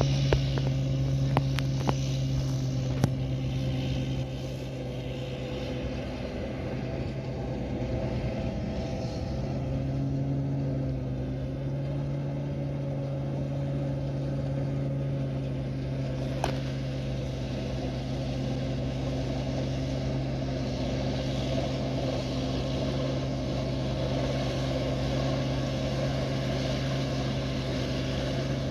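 Giant rice combine harvester's engine running steadily with a low, even hum. A few sharp clicks sound in the first three seconds and once more about halfway through.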